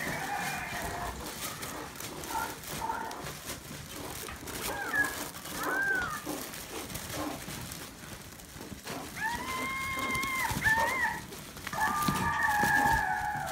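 Maltese puppies yipping and whining as they play, high-pitched, with short rising-and-falling yelps, then two longer drawn-out cries, one about nine seconds in and one near the end.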